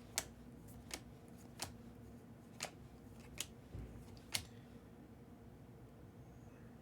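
Six sharp, short clicks over about four seconds as trading cards are handled and flipped, then only a faint steady hum.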